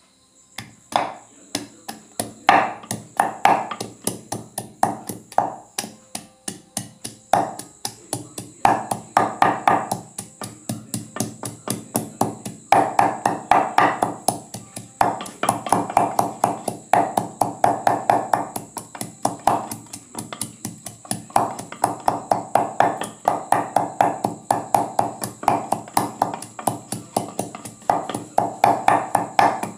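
Garlic being pounded with a long wooden pestle in a mortar: rapid, even thuds, about four a second, with a few short pauses between bouts.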